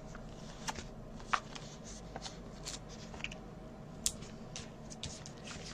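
Scattered small clicks and light paper rustling from fingers handling card stock and peeling foam adhesive dots (dimensionals) off their backing sheet.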